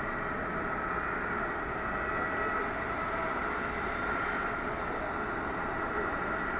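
Jet airliner engines running at low taxi power: a steady whine over a broad rumbling hiss.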